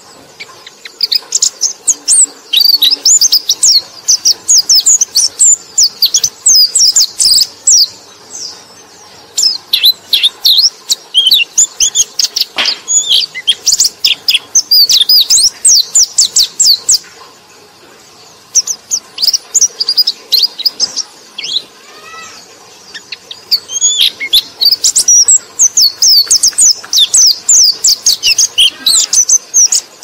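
White-eye (pleci) singing a fast, high twittering song of rapid chirps in long runs, broken by short pauses about 9 and 18 seconds in.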